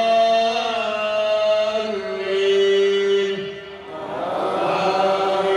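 A man's voice chanting in long, slowly bending held notes, with a short break about two-thirds through: Quran recitation aloud by the imam leading the Eid prayer.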